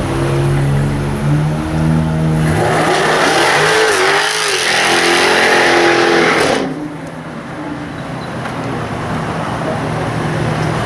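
Jaguar F-Type R's supercharged V8 running steadily, then revving hard through a burnout: for about four seconds a wavering engine note rises and falls over loud tyre rush. It cuts off suddenly, and the engine runs on more quietly.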